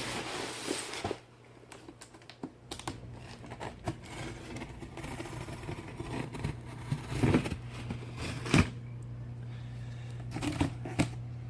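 A cardboard box being opened by hand, its tape slit with a box-opening tool: scattered small scrapes, clicks and taps, a few louder ones about seven and eight and a half seconds in, over a steady low hum.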